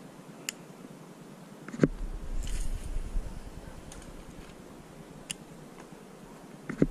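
Handling noise on a body-worn camera's microphone as the angler moves: two dull knocks about five seconds apart, each followed by a low rumble, and two faint sharp ticks in between.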